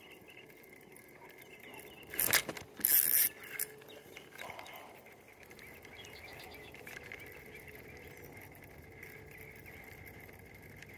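Spinning reel being cranked, a mechanical ratcheting whir of its gears, with two loud noisy bursts about two to three and a half seconds in.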